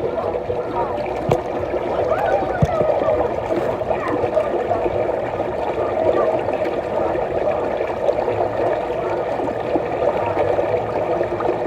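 Steady running water mixed with a hubbub of many distant voices, a water-park crowd.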